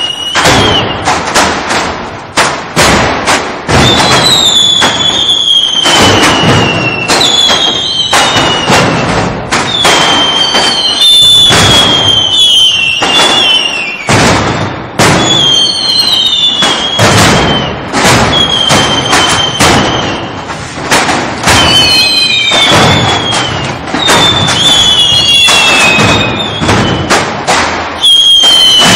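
Rapid, irregular bangs of plastic crates being slammed down, mixed with short falling whistles every couple of seconds: a mascletà firework barrage imitated with produce crates.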